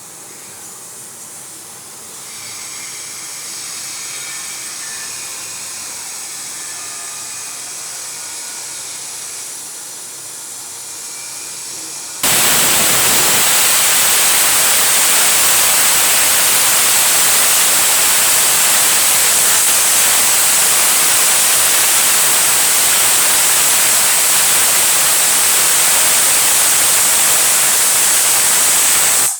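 Pressure cooker hissing steadily as steam escapes from its valve, with a few faint thin tones over the hiss. About twelve seconds in it suddenly becomes much louder, a steady, high-pitched rush of venting steam: the cooker's full whistle.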